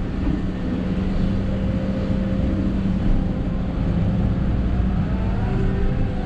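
Hidromek 220 LC excavator's diesel engine running steadily under load, heard from inside the cab, while the bucket digs and lifts a load of soil. A fainter whine shifts in pitch about five seconds in, as the loaded boom rises and swings.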